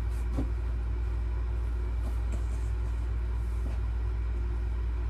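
Steady low hum of a window-type air conditioner running, with a few faint rustles of paper and packaging being handled.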